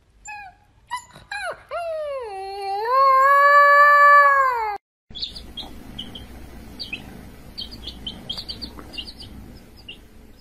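A fluffy husky-type puppy gives a few short yips, then a long howl, about four seconds long, that dips and rises in pitch before it cuts off. After it come faint, rapid peeps of young chicks over a low hum.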